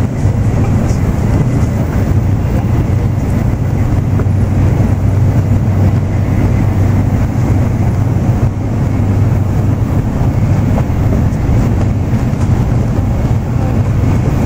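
Steady low rumble of an N700-series Shinkansen running at speed, heard from inside the passenger cabin.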